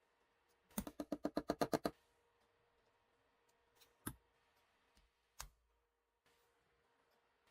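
Metal clicking from a Nagant M1895 revolver being handled: a quick run of about a dozen clicks, roughly ten a second, then two single clicks a few seconds apart.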